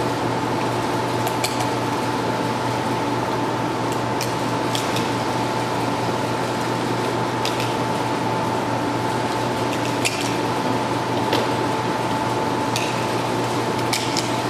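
Cartridges being pressed one at a time into a Glock 36 pistol magazine, a series of faint metallic clicks, some in quick pairs, over a steady background hum and noise.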